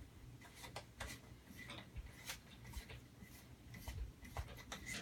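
Faint, scattered clicks and rubbing of hands fitting a new wheel and lug nut onto a Traxxas Summit RC truck, over a faint low hum.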